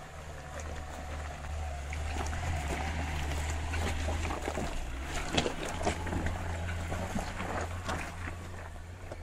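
A small Mitsubishi 4x4's engine running at low revs as it crawls past over a rocky track, getting louder as it comes close and easing off as it moves away. About halfway through, stones crunch and knock under its tyres.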